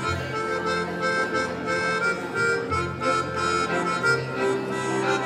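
Accordion playing a Lemko folk tune: sustained reedy chords over a bass note that changes every second or two.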